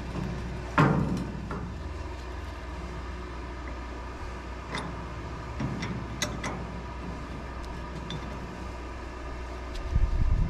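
Dump truck's diesel engine idling steadily. A sharp metal clank comes about a second in, with a few lighter clicks and knocks later on.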